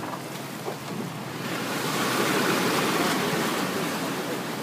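Small surf breaking and washing up a sandy beach around a boat's bow, a wave swelling about a second and a half in and easing off near the end.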